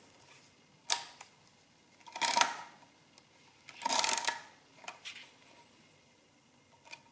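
Multifix E1R mechanical calculator being cleared: a sharp click about a second in, then two short metallic clatters of its clearing mechanism, followed by a few lighter clicks.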